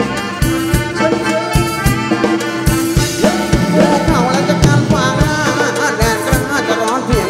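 Amplified Thai ramwong dance music from a live band playing without words: a steady drum beat under held melody notes, with a wavering lead melody coming in about three seconds in.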